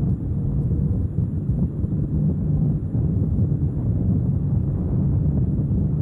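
Motorcycle riding at road speed, heard as a steady low rumble with wind buffeting the handlebar-mounted microphone.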